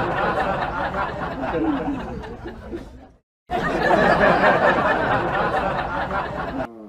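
A group of people laughing and chattering together. It cuts off a little past three seconds in, then starts again after a brief silence.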